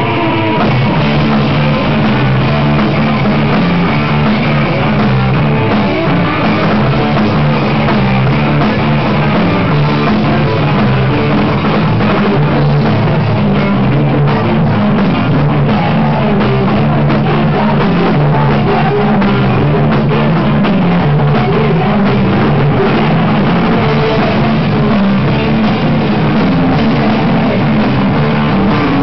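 A rock band playing loud live, with electric guitars over a stepping bass line and a drum kit, steady throughout.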